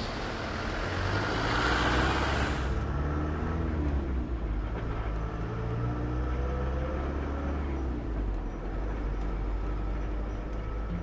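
A road vehicle's engine running with a steady low rumble and a pitch that slowly rises and falls. A loud hiss sounds over it at first and cuts off suddenly about three seconds in.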